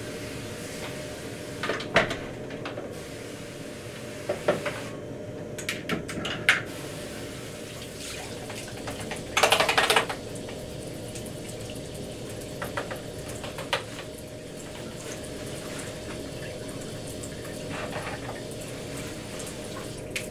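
Water running and spraying in a laboratory sink, with knocks and clatter as gear is handled and set down. About halfway through comes a short, loud hiss of about a second. A faint steady hum runs underneath.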